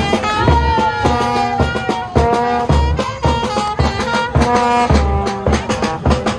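Street marching band playing: trumpets and a large brass horn carry a stepping melody of held notes over rattling snare drums and heavy low drum thumps about every two seconds.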